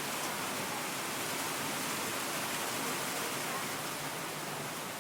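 Steady rain falling, an even hiss of drops with no single drop standing out.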